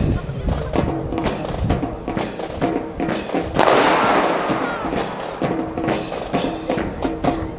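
Music with a steady drum beat over sharp, regular clacks from a rifle drill. About three and a half seconds in, a loud bang rings out with a long echo.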